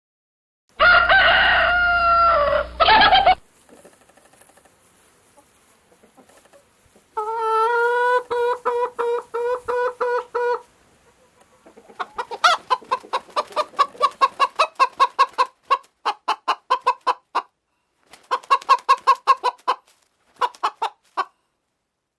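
Chickens: a rooster crows once, then a long pulsing call at a steady pitch follows. After that come bursts of rapid clucking, several calls a second.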